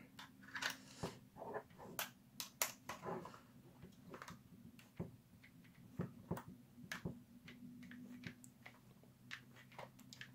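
Faint scattered clicks and ticks of a screwdriver and small hardware being handled while a nylon lock nut is tightened onto an M5 bolt through a 3D-printed plastic T-handle. A faint low hum runs underneath.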